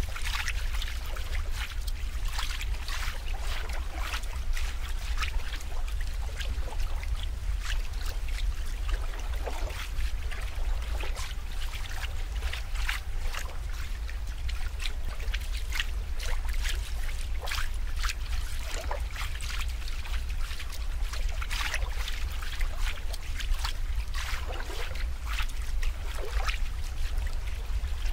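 Water trickling and splashing steadily, with many small crackling drips and splashes over a constant low rumble.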